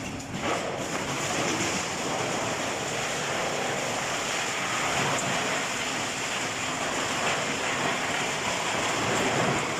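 Heavy-duty wood chipper running, a dense, steady rushing noise.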